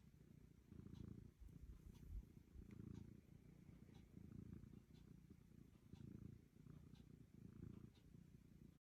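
A domestic cat purring faintly, a low rumble that swells and eases about once a second with its breathing.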